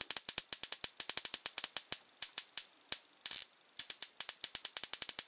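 Harpelec BS high-voltage hornet-harp generator firing a rapid, irregular volley of sharp spark snaps between its crocodile-clip output and a utility-knife blade: a salvo of sparks rather than a single discharge. The snaps thin out in the middle, with one short crackle, then come thick again.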